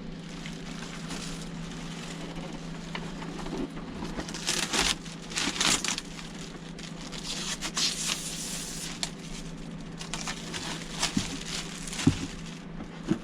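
Cardboard box and plastic packaging being handled and pulled apart while a mini split air conditioner's indoor head unit is unpacked: irregular crinkling and rustling, busiest about four to six seconds in, over a steady low hum.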